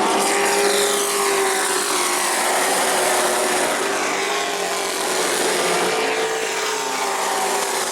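Race truck engines running at speed on a short oval, a steady loud drone whose pitch drifts up and down as the trucks lap.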